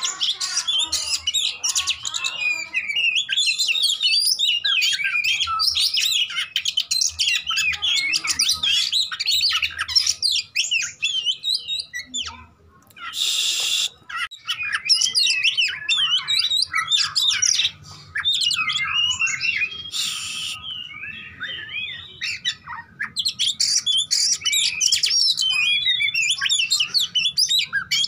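Oriental magpie-robin singing a rapid, varied song of quick whistles, trills and chatter, almost without pause, with a short break about twelve seconds in.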